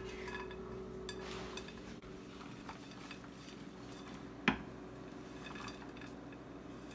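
Light clinks and scrapes of a utensil against a bowl as sugar-coated blueberries are poured into a pie crust, with one sharp knock about four and a half seconds in, over a faint steady hum.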